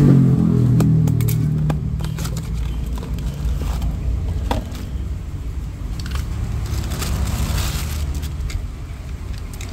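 Scattered clicks and crackles of small plastic switch parts and wiring being handled. Under them runs a low engine hum that is strongest in the first couple of seconds and then fades.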